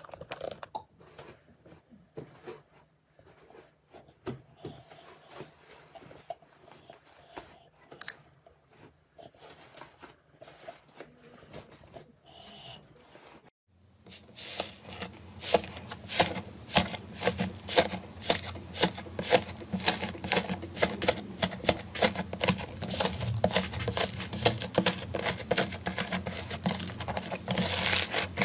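Iceberg slime, air-dried slime with a crust, crackling under hands. First comes soft blue slime pressed by a hand, with sparse faint crackles and one sharp crack about 8 s in. From about halfway, the hard-crusted red iceberg slime is broken up by both hands, with dense, louder crunching and crackling.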